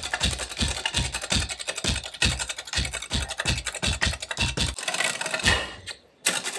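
Street percussion act: performers drumming a fast rhythm with hand tools on a long wooden plank laid across sawhorses, over a steady bass beat about three times a second. The beat stops about three-quarters of the way in, with one last hit shortly after.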